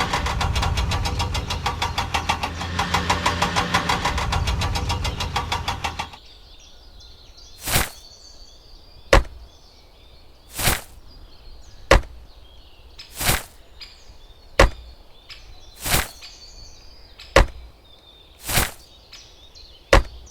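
A tractor engine runs with a fast, even chug, then cuts off about six seconds in. After that comes a series of about ten sharp knocks, evenly spaced roughly every second and a half.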